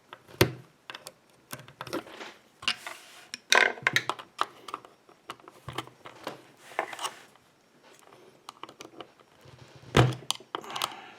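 Screwdrivers clicking, knocking and scraping against a euro lock cylinder in irregular strokes while prying at the clip that holds the plug in. The loudest knocks come about half a second in, around three and a half seconds in and about ten seconds in.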